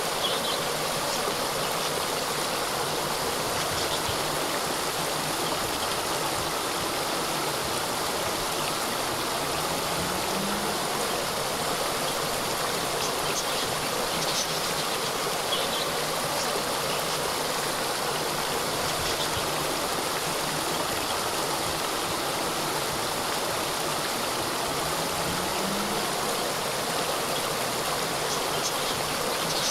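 Small cascade of water flowing and splashing steadily.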